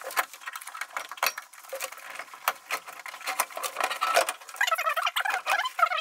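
A furnace's sheet-metal blower assembly being slid out of its cabinet: a run of clicks, knocks and light rattles, then from about four and a half seconds in a wavering, squeaky metal scrape as the housing drags against the cabinet.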